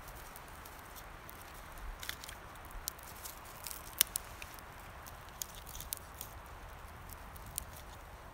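Campfire of dry deadwood crackling: scattered sharp pops and ticks, the loudest about four seconds in, over a faint steady hiss.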